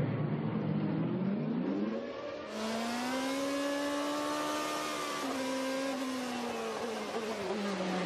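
Race car engine from the broadcast, its note rising in pitch, then after a cut about two and a half seconds in, a GP2 car's V8 heard onboard: the revs climb and hold, then fall away steadily as the car slows.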